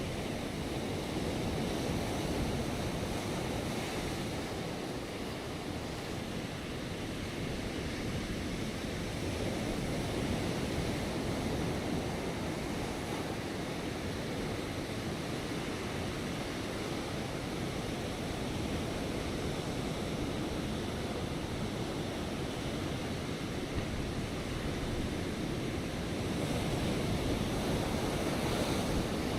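Ocean waves breaking on rocks: a continuous rushing surf that swells and eases gently in level.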